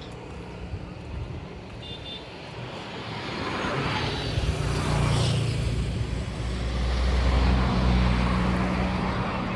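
A heavy vehicle engine running, growing louder from about three seconds in and loudest a little past the middle, then easing slightly near the end.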